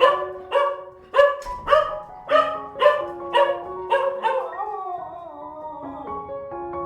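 A series of about nine short, sharp animal calls, roughly two a second, over background music with sustained piano-like notes. The calls stop about four and a half seconds in and the music continues alone.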